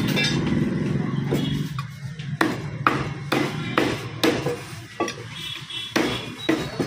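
Heavy meat cleaver chopping goat meat on a wooden log chopping block: a string of sharp thuds, about two a second, starting about a second and a half in, over a steady low hum.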